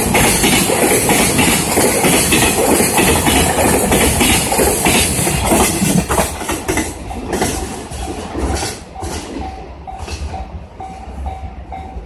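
Loaded Koki container wagons of a freight train rolling past at speed, wheels clattering over rail joints. The last wagon passes about halfway through, after which the clickety-clack recedes and fades. Near the end a level-crossing warning bell's quick repeated ding comes through.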